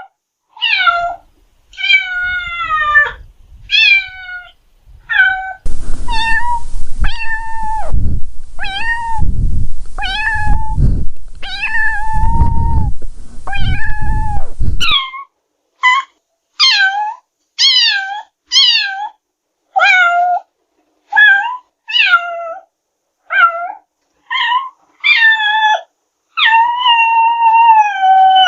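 A cat meowing over and over, about one meow a second, each call bending in pitch, with a longer drawn-out meow near the end. A low rumbling noise runs under the meows for several seconds in the middle.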